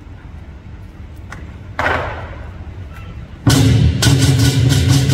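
Lion dance percussion: a single crash about two seconds in that rings away, then about a second and a half later the drum, gong and cymbals start playing loudly together, the cymbals clashing about three or four times a second.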